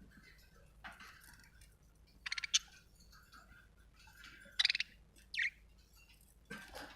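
Budgerigar chirping: a handful of short, sharp calls, the loudest about two and a half and four and a half seconds in, with faint chirps between.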